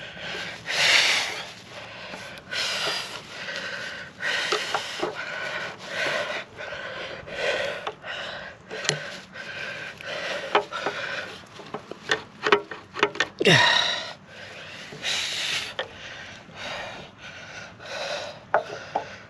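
Rubber exhaust hanger being pried and worked off its metal hanger rod: repeated rubbing and scraping with scattered clicks and a falling squeak about two-thirds through, along with hard breathing from the effort.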